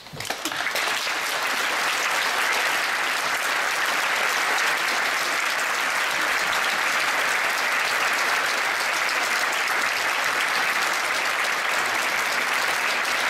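Concert audience applauding, a dense, steady clapping that builds up within the first second and then holds evenly.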